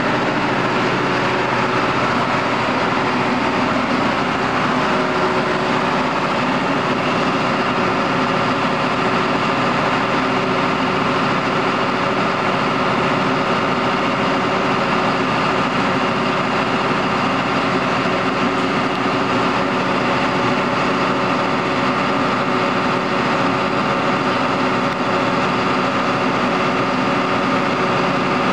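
John Deere 9600 combine harvester running steadily, its diesel engine and machinery making a constant, unchanging drone.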